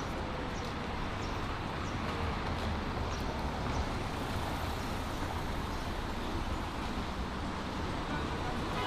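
Steady road traffic noise: a continuous low rumble and hiss of passing vehicles, with no single event standing out.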